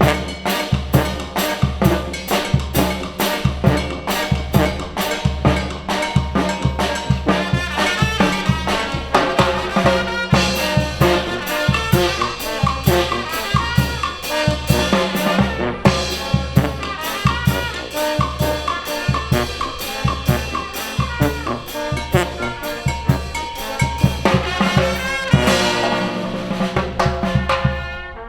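Mexican brass banda playing: trumpets and trombones carry a melody over a steady, driving drum beat.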